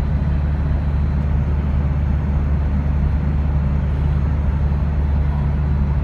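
Steady low rumble of a car driving through a road tunnel, heard from inside the cabin: tyre and engine noise at cruising speed.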